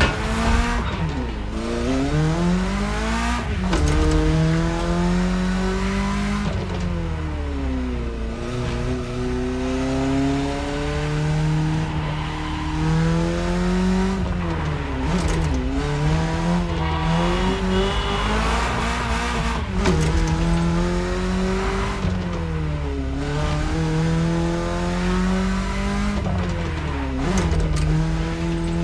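BMW E30's engine pulling hard, its note climbing in pitch through each gear and dropping sharply at every upshift, about seven times over the stretch.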